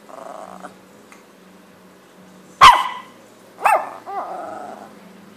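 Small dog barking: two sharp barks about a second apart near the middle, with softer, growl-like sounds at the start and after the second bark.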